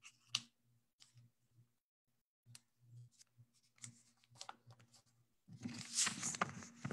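A sheet of paper being folded in half by hand: scattered light rustles and taps, then a louder crinkling rustle for the last second and a half as the fold is pressed.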